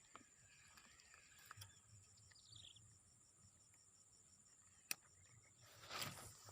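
Faint, steady insect trilling, typical of crickets: a high, even buzz with a fast, regular pulse. There is a sharp click about five seconds in and a short rustle near the end.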